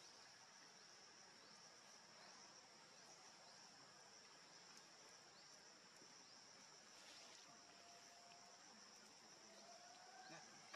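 Faint, steady high-pitched drone of insects in the forest.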